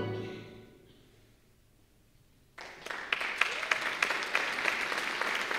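A symphony orchestra's closing chord dies away in the hall's reverberation, followed by a brief hush. About two and a half seconds in, the audience breaks into applause all at once, and the clapping carries on.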